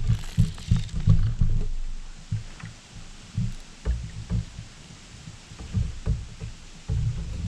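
Irregular low thumps and knocks from a kayak's hull as the angler shifts and handles gear aboard, with a few faint light clicks.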